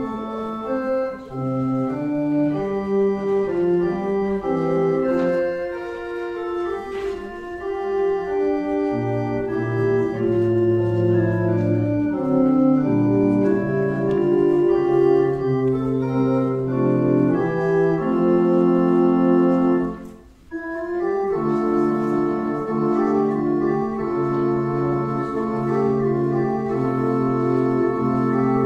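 Church organ playing slow, sustained chords, with a brief break about twenty seconds in.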